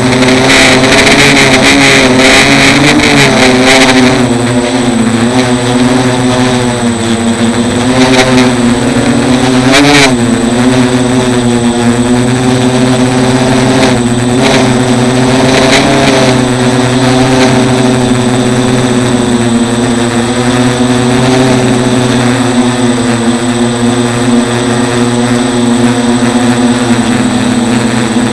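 A micro hexacopter's six small brushless outrunner motors (Turnigy 1811, 2900kv) and propellers whining in flight, heard close up from a camera on the frame. The pitch wavers up and down with throttle changes, with a few brief rushes of noise.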